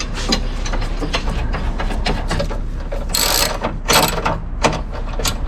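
Hand ratchet wrench clicking as a bolt is driven in, with two louder metal scrapes about three and four seconds in.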